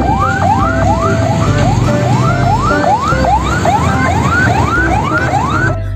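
Electronic whooping siren, a quick rising sweep repeated about two and a half times a second, with a low rumble underneath.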